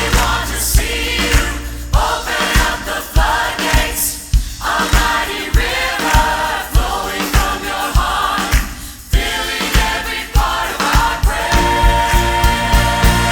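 Church choir singing with an orchestra and drums, a contemporary worship song played at full volume with a steady drum beat and brief breaks in the music.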